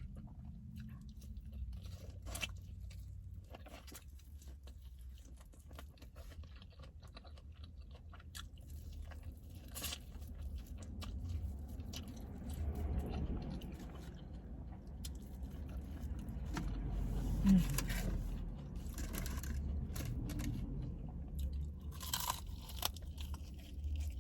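Close-miked chewing and crunching: a person biting into and eating crispy fried chicken wings, with scattered crackles and clicks over a steady low hum.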